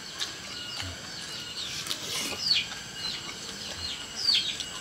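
A bird calling: short chirps that sweep downward in pitch, repeated several times and getting louder towards the end, over a faint steady high-pitched tone.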